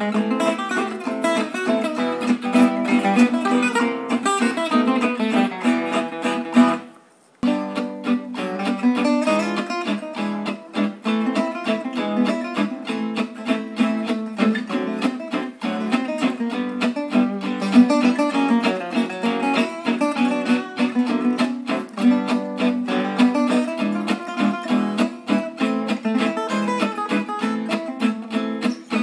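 Instrumental background music of quickly plucked guitar notes. It fades down and stops for under a second about seven seconds in, then resumes.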